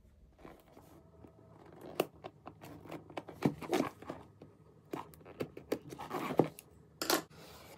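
Cardboard box being handled and turned over: scattered light taps, scrapes and rustles, with a short rasp near the end.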